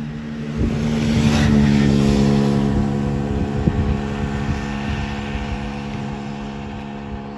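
Piaggio Zip scooter with a swapped-in 125cc Runner engine riding past and away at a steady engine note. It is loudest about a second and a half in, then slowly fades as it pulls away.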